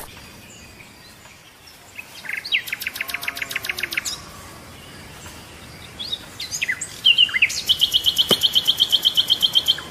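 Birds calling: a rapid trill of evenly spaced high notes about two and a half seconds in, a few short chirps around six seconds, then a louder, faster trill lasting over two seconds near the end.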